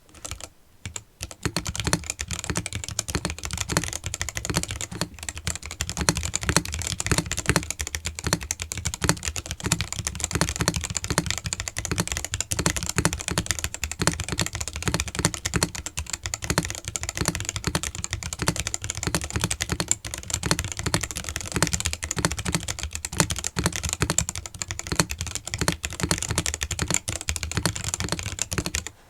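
Fast, continuous typing on a custom mechanical keyboard with black silk switches, a POM plate and DSA keycaps: a dense stream of key clacks that starts about a second in and stops abruptly at the end.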